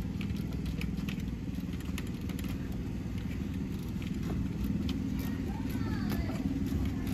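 A steady low mechanical hum in the background, with faint scattered clicks of hand tools working on a bolt.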